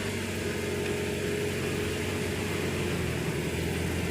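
Toyota Tacoma engine running steadily at idle.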